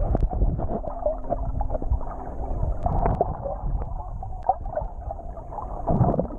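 Muffled underwater gurgling and sloshing of moving water around a swimmer, with a louder surge about six seconds in as the swimmer passes close.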